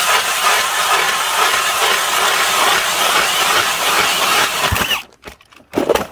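Motorized ice auger drilling a hole through lake ice, a loud steady noise that cuts off suddenly about five seconds in, followed by a short bump near the end.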